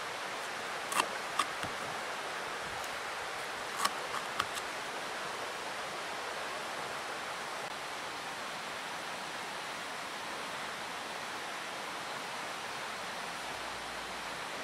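A knife chopping leafy greens on a wooden cutting board: a few sharp taps about a second in and a few more around four seconds. A steady hiss runs underneath throughout.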